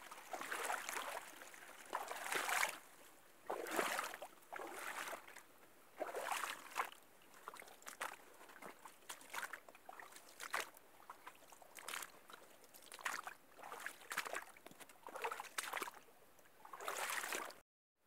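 A small stream trickling and gurgling, in faint, uneven spurts about once a second.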